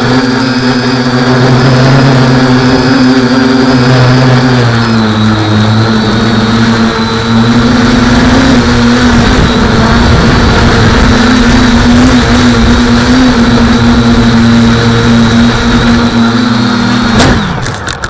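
Quadcopter's electric motors and 8x5 carbon propellers whirring loudly in flight, the pitch stepping up and down a little with the throttle. About 17 seconds in there is a click and the motors wind down, their pitch falling.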